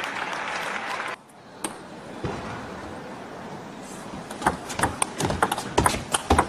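Audience applause fading, then cut off abruptly about a second in, leaving quiet arena ambience. From about four and a half seconds a table-tennis ball sounds as a run of sharp, irregular clicks off the bats and table during a rally.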